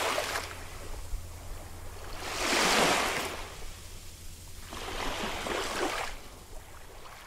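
Ocean waves washing in, a hiss that swells and fades about every three seconds.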